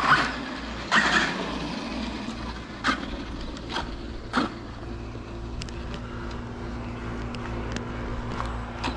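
A few sharp knocks and clatters, then from about five seconds in a steady low mechanical hum, as of a motor running at an even speed.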